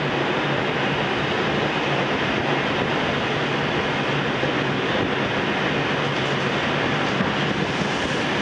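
Steady rumbling noise inside an R142 New York City subway car, with a low hum running under it.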